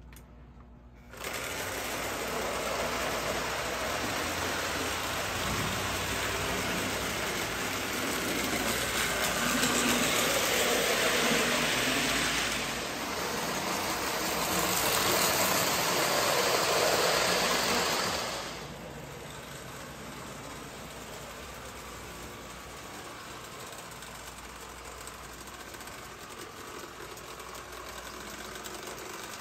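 Marx 400 toy electric steam locomotive running on tubular three-rail track, pulling a train of plastic freight cars: a steady motor whir and wheel rattle. It starts suddenly about a second in, is loudest while the train passes close in the middle, then drops off to a quieter steady run.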